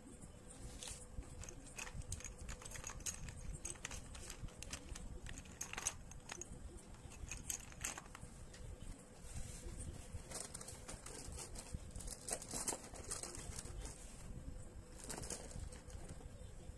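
Sticks of chalk clicking and rattling against each other as they are handled and sorted by hand, in irregular clusters of light taps. A faint steady hum lies behind them.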